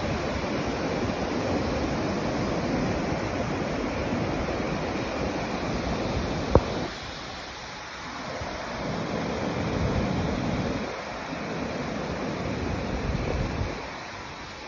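Ocean surf breaking on a beach, with wind on the microphone coming and going in gusts. A single sharp click about halfway through.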